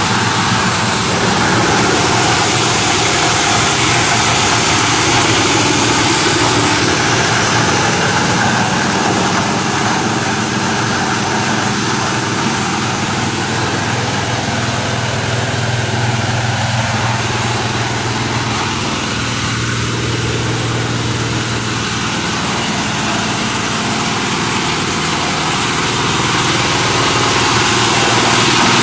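Plastic shredding machine with tiered blades running steadily with a loud, continuous engine-like drone.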